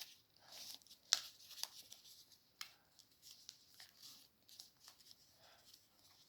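Origami paper being handled and folded: faint, irregular rustling and crinkling with sharp crackles as creases are pressed, the sharpest about a second in.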